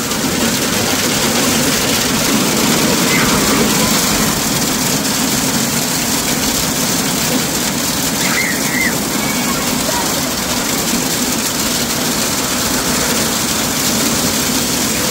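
Hail falling hard and steadily: a dense, unbroken rattling hiss of hailstones striking the metal porch awnings, steps and pavement. A child's brief shout or squeal rises above it a couple of times, near 3 s and again around 8 to 9 s.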